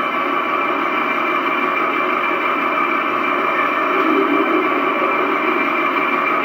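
RC Leopard 2A4 model tank's sound unit playing a steady engine-idle sound through its small built-in speaker while the turret traverses.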